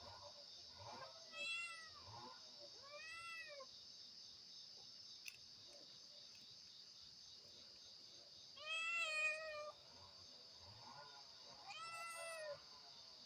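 A cat meowing four times. Each call rises and then falls in pitch, and the third is the longest and loudest. Under the meows there is a steady high drone of crickets.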